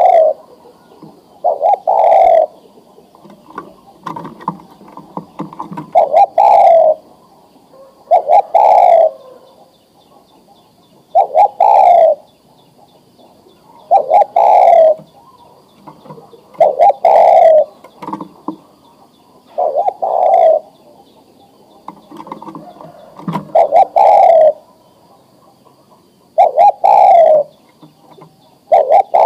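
Male spotted dove (tekukur) cooing, a short phrase repeated about every two and a half seconds: the call a breeding-ready male gives to draw a female to mate.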